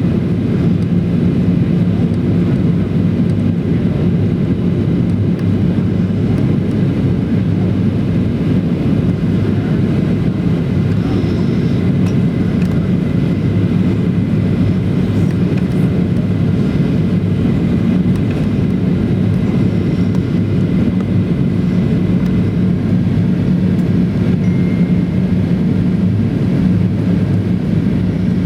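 Steady cabin noise of a Boeing 737-800 in flight or on the ground, heard from inside the cabin: an even, low drone from the CFM56 engines and airflow, with a faint high tone above it.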